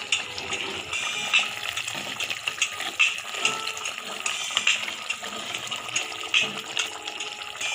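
Thick tamarind gravy bubbling and spitting in a clay pot on a gas flame as it simmers, with many small pops and crackles, while a ladle stirs through it.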